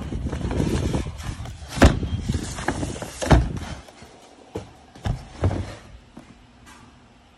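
Plastic wrapping rustling and crinkling as a new wheel rim is unwrapped, with several sharp knocks as the rim is handled, the loudest about two and three seconds in; the rustling dies down about halfway through.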